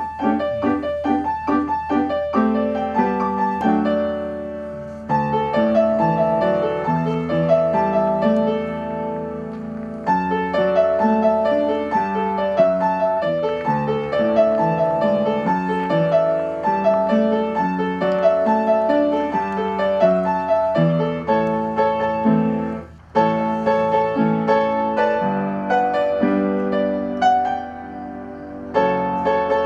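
Background piano music, a continuous instrumental piece with a brief break about three-quarters of the way through.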